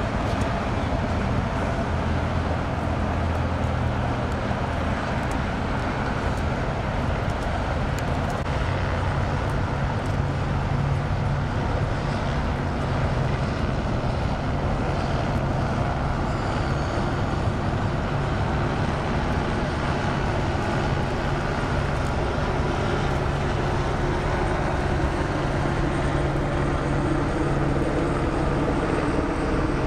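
Steady low engine drone that runs without let-up, with a few faint steady higher tones above it.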